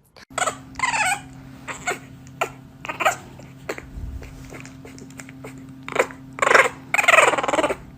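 A pet animal making a series of short pitched calls, about eight in a row, the loudest two near the end, over a steady low hum.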